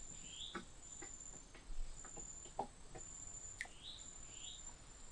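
Faint insects calling by the river: a steady high buzz broken into long pulses of about a second, with a few short rising chirps in pairs and scattered light knocks and taps.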